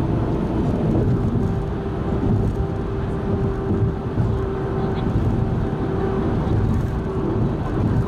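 Car driving at expressway speed: steady low rumble of tyres and engine, heard from inside the car. A steady hum joins about a second in and holds.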